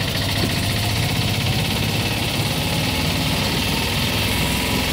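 A steady, unchanging low engine hum, like a motor idling, under a constant hiss of street noise.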